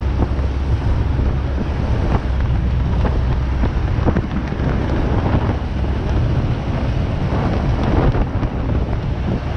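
Wind buffeting the microphone over a steady low rumble from a moving vehicle, with scattered short crackles.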